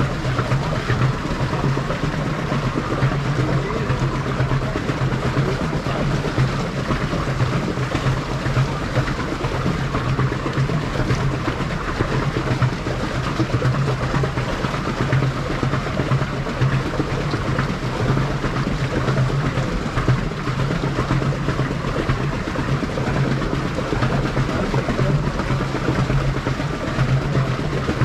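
Small boat under way on calm water: a steady low motor-like hum with a constant rush of water along the hull.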